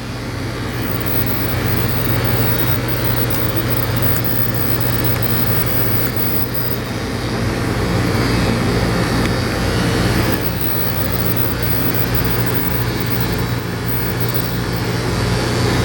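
Electric dog grooming clippers with a #10 blade running steadily, a constant hum, as they are skimmed through a dog's face coat.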